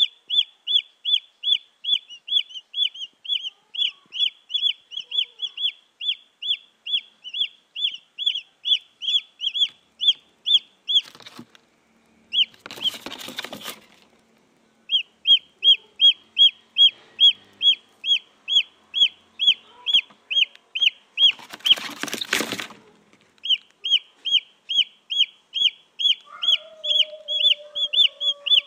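Junglefowl chicks peeping, a fast steady series of short high peeps, about three a second. The peeping breaks off twice, about a third of the way in and again past the middle, for a loud burst of noise. A lower, falling, drawn-out call sounds near the end.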